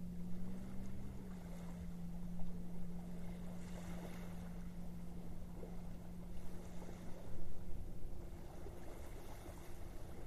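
Boat motor running steadily: a constant low hum that dips slightly in pitch about a second in, over a low background rumble.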